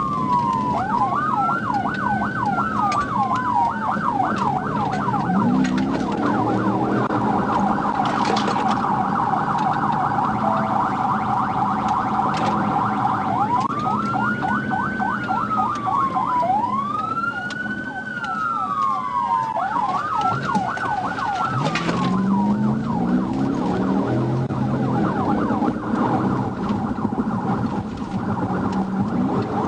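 Police car's electronic siren running, switching between a slow rising-and-falling wail, a fast yelp and a rapid trilling tone. Underneath it, an engine revs up twice, about five seconds in and again about twenty-two seconds in, as the patrol car accelerates.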